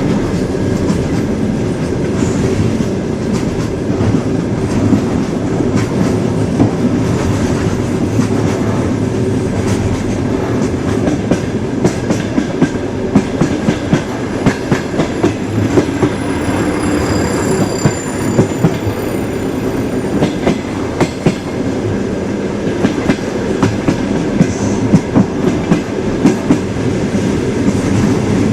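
Train running on the rails: a steady, loud rumble of wheels with frequent sharp clicks and knocks over the rail joints. A faint high whine comes in about two-thirds of the way through.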